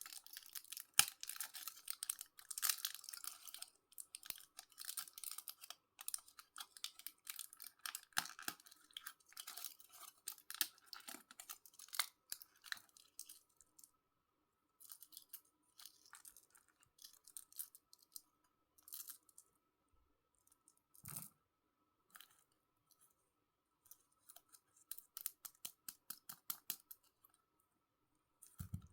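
Sweet wrappers crinkling and tearing as they are unwrapped by hand. Dense crackling for the first dozen seconds or so, then sparser bursts of crinkles, with a soft thump about 21 seconds in.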